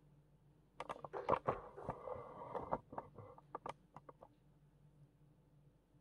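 A quick burst of sharp clicks, taps and scuffling, starting about a second in and dying away after about three seconds.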